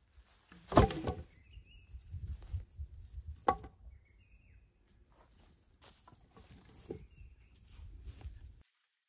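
A heavy knock about a second in and a sharper knock a few seconds later, between bouts of low rustling and handling noise, typical of working with logs. A small bird gives short chirps several times, and everything cuts off suddenly near the end.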